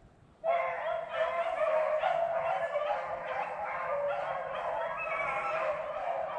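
Pack of beagles baying together on a rabbit's trail, several voices overlapping without a break. It starts abruptly about half a second in.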